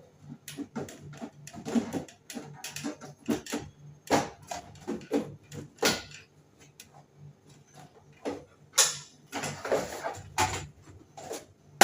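Irregular knocks, clicks and scrapes of a window air conditioner's metal casing and panels being handled and taken apart, with heavier knocks near the end.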